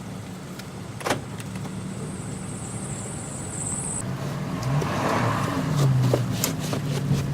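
Car engine running, heard from inside the cabin, with a sharp click about a second in and a high thin whine that cuts off suddenly at about four seconds. After that the engine note shifts and the overall noise grows as the car moves off.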